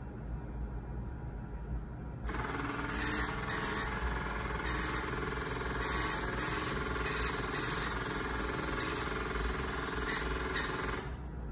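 Strip printer attached to a Mettler Toledo analytical balance printing, starting about two seconds in and stopping shortly before the end, in a run of uneven pulses. It is printing the balance's record of an aborted adjustment.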